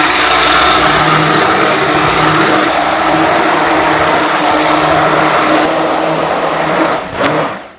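Hand-held immersion blender running steadily, blending a large stainless steel bowl of raw eggs; it cuts off near the end.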